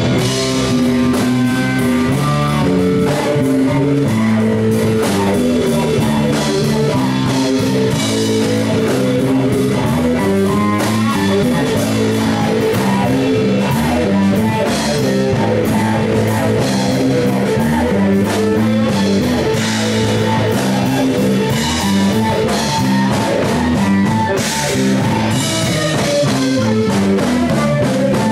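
Rock band playing live: electric guitar and bass over a drum kit keeping a steady beat.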